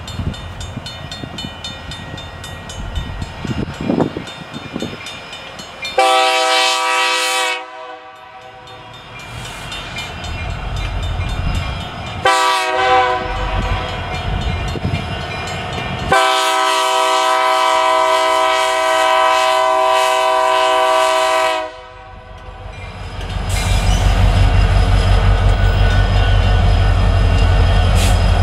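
Diesel freight locomotive's Nathan K3LA multi-chime air horn sounding for the grade crossing: a long blast, a short one, then a long blast of about five seconds, with a crossing bell ringing early on. Near the end the lead locomotives rumble loudly as they reach the crossing.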